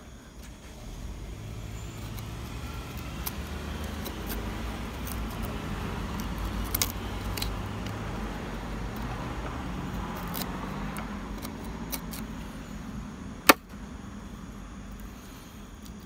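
A motor vehicle's engine hum swelling and fading over about twelve seconds, under a few light clicks of a chisel levering at mahogany in a dovetail groove. Near the end comes one sharp crack, the loudest sound, as the chisel breaks the waste free.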